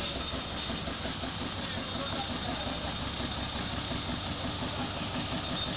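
An engine running steadily, with a regular low throb and a faint thin high whine.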